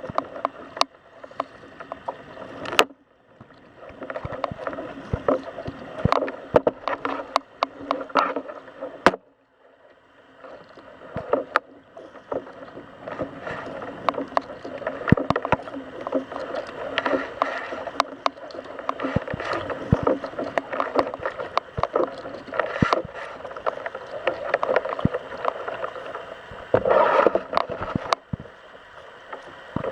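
Kayak under way: water splashing and sloshing against the hull from paddling, with frequent sharp knocks and clicks. The water sound drops away briefly about three seconds in and again about nine seconds in.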